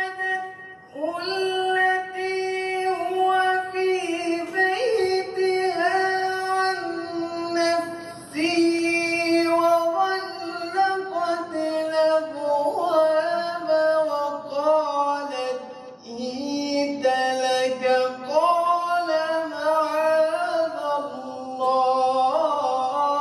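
A man reciting the Quran in a melodic, drawn-out chant, holding long notes and turning the pitch slowly, in several long phrases with short breaths between them.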